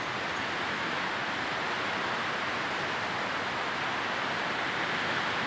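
Steady, even pink-noise hiss for sleep, with no rhythm, tones or changes.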